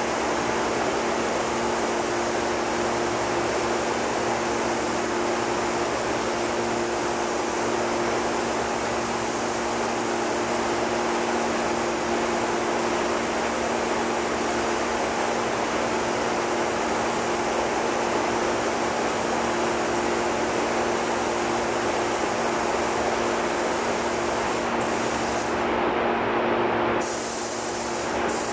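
Compressed-air paint spray gun hissing steadily as paint is sprayed, over a steady low hum. The hiss breaks off for about a second near the end, then resumes.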